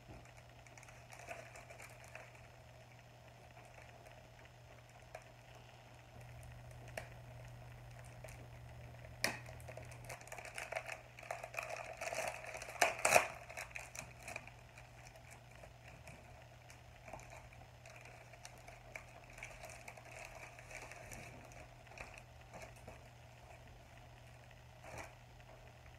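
Faint rustling and crinkling of a cross stitch kit's paper and plastic packaging being handled, with a cluster of sharper crackles and clicks about halfway through. A low steady hum runs underneath.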